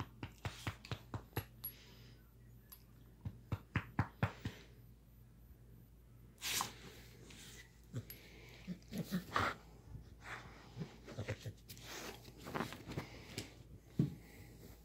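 Dog chewing and mouthing a toy: runs of short wet clicks and smacks, about three a second, in the first few seconds, then scattered short breathy puffs.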